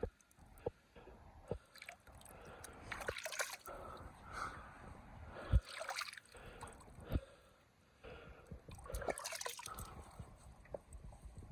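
Rain and wind on the microphone: dripping and irregular gusts of hiss, with a few sharp low thumps.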